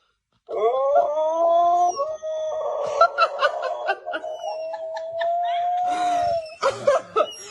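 A dog howling one long, drawn-out note that starts about half a second in and holds steady for roughly six seconds, followed by a few short noisy sounds near the end.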